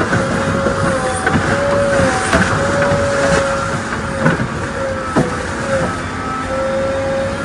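JCB 3DX backhoe loader running, its diesel engine steady under a whine that breaks off and returns several times as the backhoe arm works. The bucket splashes in the water with a few sharp knocks.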